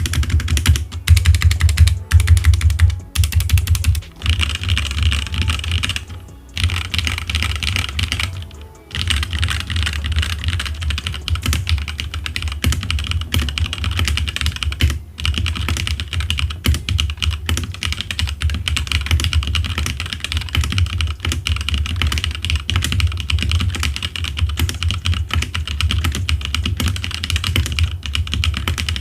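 Fast, continuous typing on a HyperX Alloy Origins mechanical gaming keyboard: a dense run of key clicks, broken by a few short pauses in the first nine seconds.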